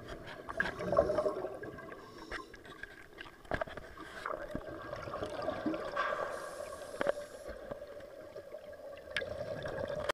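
Diver's exhaled bubbles gurgling underwater, with a longer burst of bubbling about six seconds in. A few sharp knocks are heard, the clearest about 3.5, 7 and 9 seconds in.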